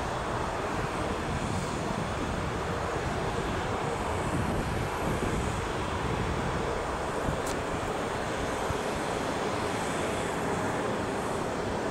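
Steady, even rushing noise of jet aircraft, with no change in pitch or level.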